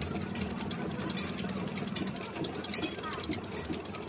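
Coil-winding machine's electric motor running steadily, spinning a transformer coil as enamelled copper wire winds onto it. A low hum is heard, with rapid, regular ticking over it.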